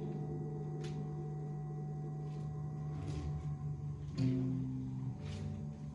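Quiet instrumental music of slow, held notes, moving to a new chord about four seconds in.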